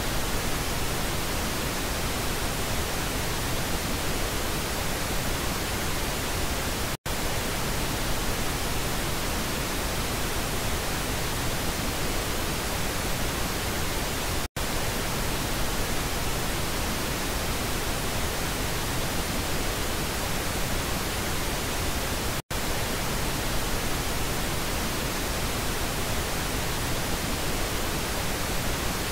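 Pink noise test signal for checking stereo speaker channels, a steady hiss that breaks off for an instant three times, about every seven and a half seconds, as it switches between the left and right channels.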